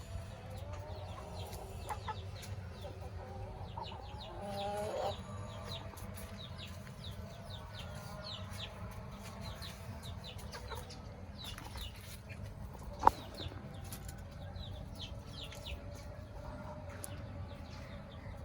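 Brahma chickens clucking, with many short high chirps throughout and a louder drawn-out call about four to five seconds in. A single sharp knock about thirteen seconds in is the loudest sound.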